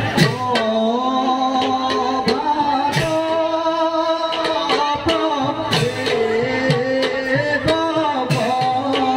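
Live Assamese bhaona music: steady drum strokes under a held, wavering sung melody.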